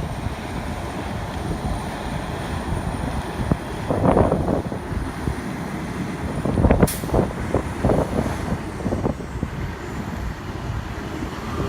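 A heavy vehicle such as a crane or truck running and moving off, a low engine rumble that swells twice, with a brief sharp noise about seven seconds in.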